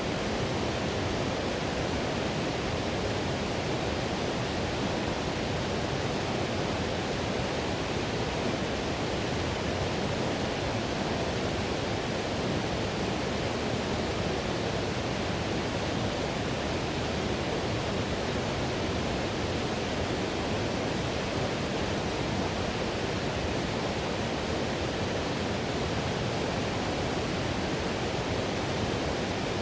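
River whitewater rushing over rocks in a steady, unbroken roar, deepest and strongest in the low range.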